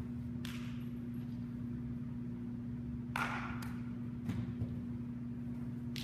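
A baseball smacking into leather and netting during catcher throwing drills: a few sharp smacks, the loudest about three seconds in, with soft thumps just after, over a steady low building hum.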